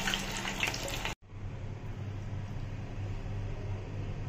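Oil sizzling and crackling as vegetable Manchurian balls deep-fry in a pan. After about a second it cuts off abruptly and gives way to a quieter, steady low hum.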